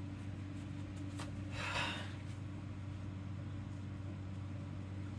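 Steady low room hum, with one short breathy sniff about two seconds in from a woman who has been crying.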